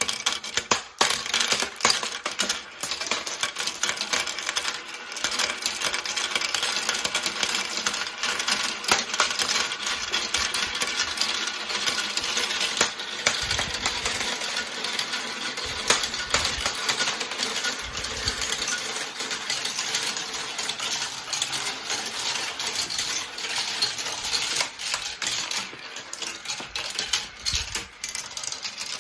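Marbles rolling and clattering down a marble run track: a dense, continuous rattle of small clicks that starts suddenly.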